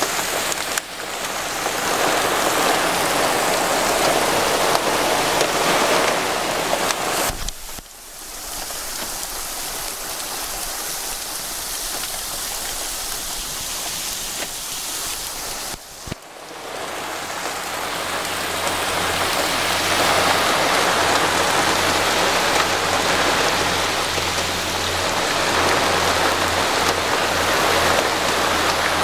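Heavy downpour of rain mixed with pea-sized hail: a steady, loud rushing hiss that dips briefly twice.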